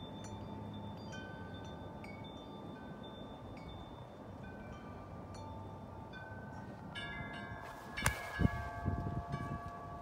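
Large metal tubular wind chimes ringing in the wind, with a few scattered notes at first and then a dense cluster of strikes about seven to eight seconds in. A sharp knock comes about eight seconds in, followed by low bumps near the end.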